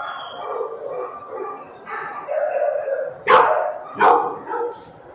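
Several shelter dogs barking in the kennels, with two loud, sharp barks about three and four seconds in over steady background barking.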